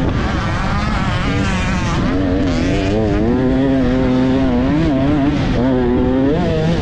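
Dirt bike engine revving hard under race riding, its pitch rising and falling again and again as the throttle is blipped and rolled on and off.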